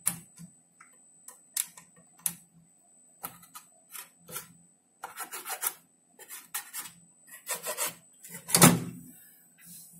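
Intermittent scraping and rubbing on the sheet-metal chassis of an opened LCD monitor as a power-supply board and tool are worked against it, with one louder scrape-knock near the end.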